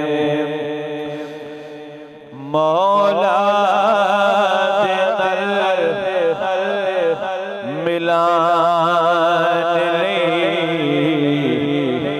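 A man's voice singing a naat into a microphone, a wordless melismatic passage with wavering, gliding pitch over a steady low drone. A held note fades out in the first two seconds before the singing comes back in loudly, with a short break near the middle.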